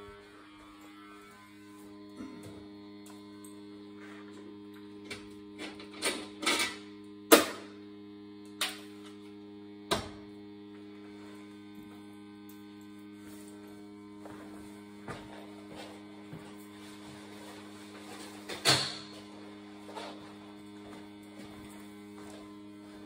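Steady electrical hum from the running oil-fired boiler and burner, broken by several sharp knocks and clicks as parts and hoses are handled, the loudest about seven seconds in and another near nineteen seconds.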